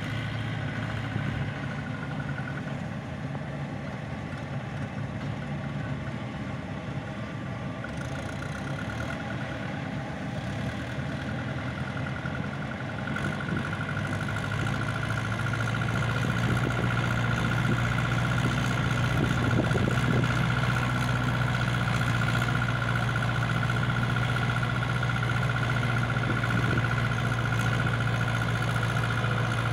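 Mahindra tractor's diesel engine running steadily as it hauls a fully loaded trolley across a harvested paddy field, the engine drone and a high steady whine growing louder from about halfway through as the tractor comes closer.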